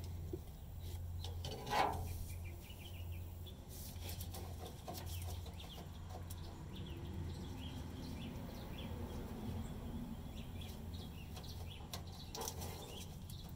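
Small clicks and scrapes of gloved hands working the fuel-line fittings and electrical connector at a pickup's fuel tank, with a single louder knock about two seconds in, over a steady low hum.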